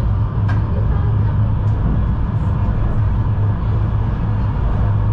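Tram running along the track, heard from inside at the rear of the car: a steady low rumble of wheels on rails and running gear, with a couple of faint clicks.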